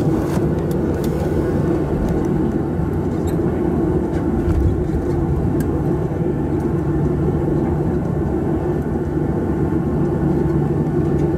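Boeing 737-700 cabin noise while taxiing: its CFM56-7B turbofans running steadily at taxi power, heard from inside over the wing as a loud, even drone with a low hum, and occasional faint ticks.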